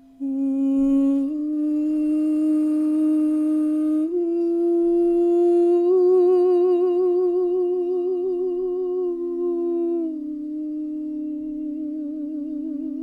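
A woman's wordless humming or toning, held as long notes that step upward in pitch, waver with vibrato in the middle, then drop back, over the steady drone of a ringing singing bowl. Sound-healing toning meant to anchor energy in the body.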